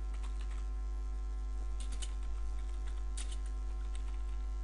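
Computer keyboard keys clicking in a few short runs as words are typed, over a steady electrical mains hum.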